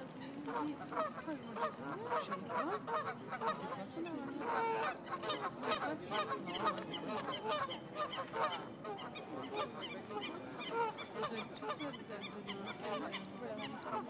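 A flock of Canada geese honking, many short calls following one another closely and overlapping.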